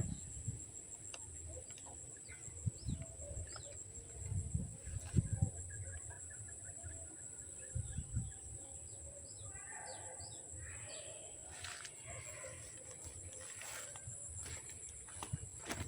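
Wild birds chirping outdoors: many short, high, falling chirps scattered throughout, over a steady high-pitched whine. A few low thumps come in around the middle.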